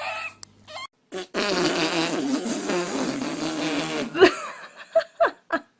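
A long, rasping fart lasting about three seconds, followed by a few short voice sounds.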